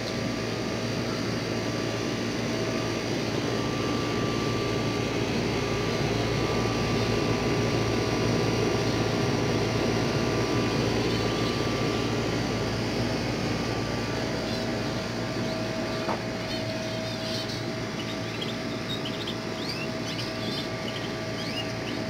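A steady mechanical drone, like a passing aircraft or machinery, swells for several seconds and then eases. Small birds chirp faintly and quickly over the last few seconds.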